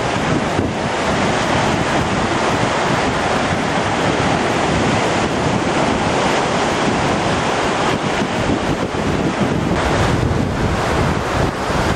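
Rough sea surf breaking on the beach, with steady wind buffeting the microphone.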